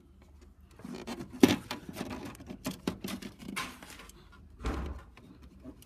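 Irregular handling noises: clicks, taps and rubbing as the camera and torch are moved around inside the copier, with one sharp click about one and a half seconds in and a dull thump about three-quarters of the way through.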